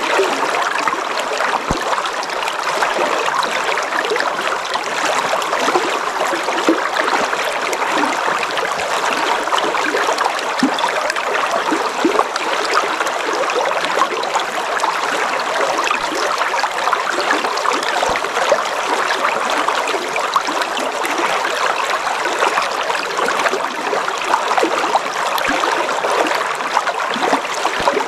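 A river flowing: a steady rush of water with many small trickles and splashes.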